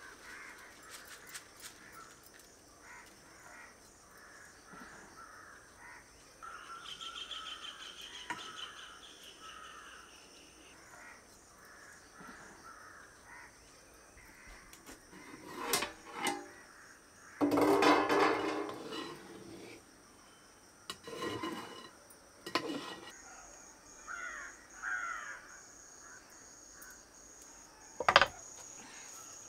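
Outdoor rural ambience: birds calling and crows cawing several times, loudest just past the middle. A steady cricket trill sets in later, and there is one sharp knock near the end.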